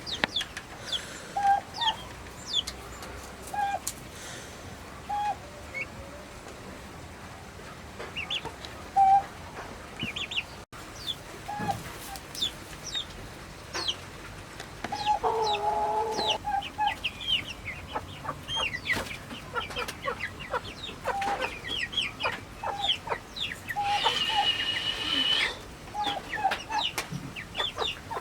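Flock of domestic turkeys calling: short repeated clucks mixed with many brief high-pitched peeps, with a longer call about halfway through and another near the end.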